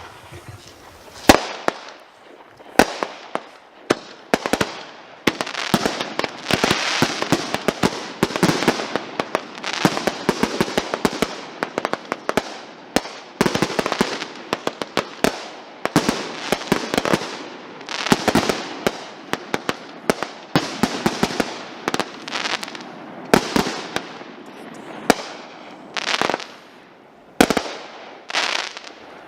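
Consumer aerial fireworks going off in a rapid string: many sharp bangs of bursting shells, often several in quick succession, with thick crackling between them.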